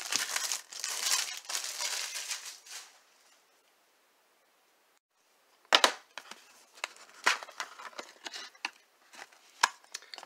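Crinkling of plastic shrink wrap being pulled off a cardboard box of trading cards, stopping after about three seconds. After a short gap comes a sharp tap, then scattered light clicks and taps as the cardboard box lid is handled and opened.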